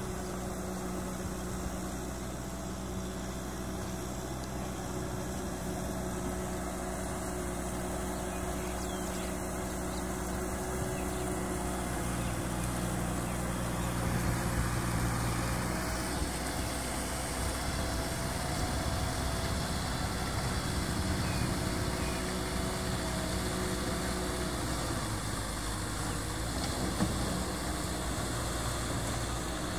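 Kubota M6040SU tractor's four-cylinder diesel engine running steadily as it pulls a cultivator through paddy mud, its note shifting a few times.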